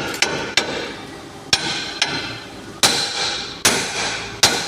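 Hammer striking metal, about six ringing blows at an uneven pace, the last three the hardest.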